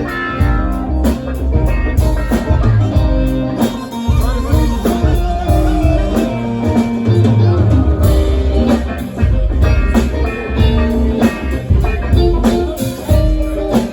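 A live band playing: electric guitar, bass and drum kit in a steady blues-rock groove.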